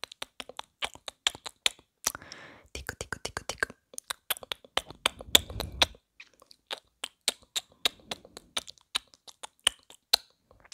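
Close-miked ASMR mouth sounds: quick, sharp tongue clicks, about four a second, with a few short stretches of softer mouth noise between the runs.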